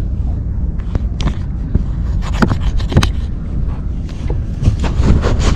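Wind buffeting the camera's microphone as a steady low rumble, with scraping and rubbing handling noise on the camera and a run of sharp clicks that grow busier near the end.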